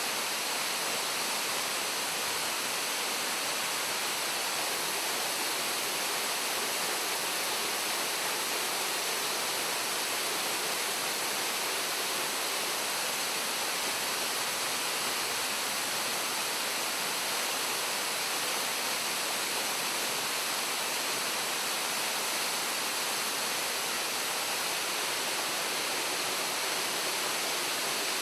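Waterfall: water falling in a steady, even rush, mostly a high hiss with little low rumble.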